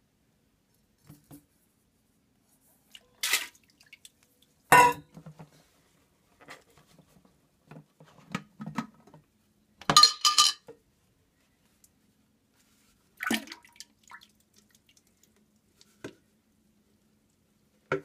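Scattered clanks and knocks of a stainless steel mixing bowl and a glass sauce jar being handled, with wet drips and splashes as spaghetti and sauce go into the toilet water. The loudest clatters come about five and ten seconds in.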